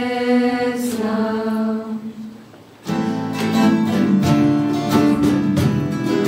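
A group of voices holds a sung chord without accompaniment, fading out about two and a half seconds in. Then an acoustic guitar starts strumming chords in a steady rhythm.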